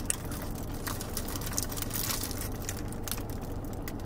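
Close-up chewing and wet mouth sounds of people eating burritos, with soft crinkles of the foil wrapping, as scattered small clicks over a steady low hum.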